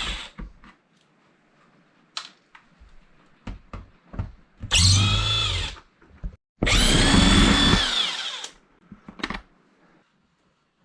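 Power drill run in two bursts, one of about a second and one of about two seconds, its whine rising at the start of each run and dropping as it stops. Light knocks and clicks come before and after the runs.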